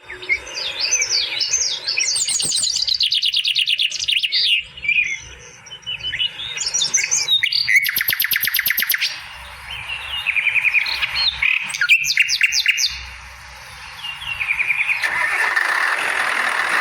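Birds singing and chirping, with quick trills and fast runs of repeated notes. Near the end a steady rough noise sets in beneath them.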